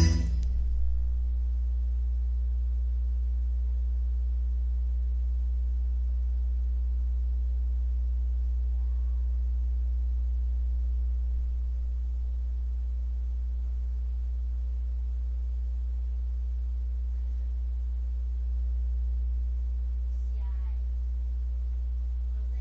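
Steady low electrical hum with faint overtones, unchanging throughout, with a few faint short chirps partway through and near the end.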